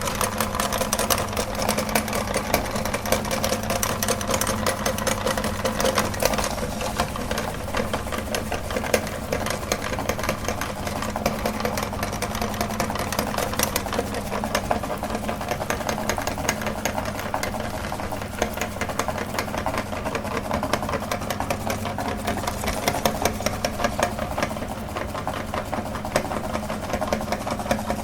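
Electric meat grinder running steadily, its motor humming under a fast, continuous clicking rattle.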